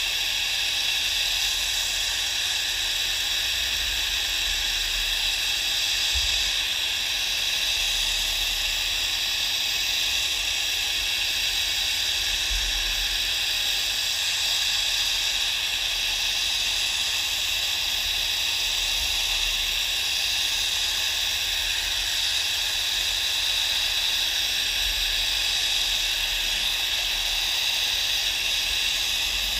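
Gas brazing torch flame hissing steadily as it heats a steel part for silver brazing.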